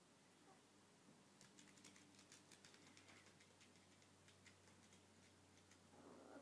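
Faint, quick clicking of a chihuahua's claws on a hard floor as she dances, followed near the end by a brief vocal sound from the dog.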